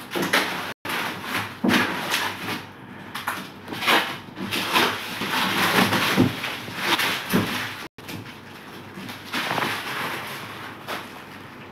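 Protective plastic film being peeled off aluminium composite cupboard panels and crumpled by hand, rustling unevenly. The sound drops out abruptly twice, briefly.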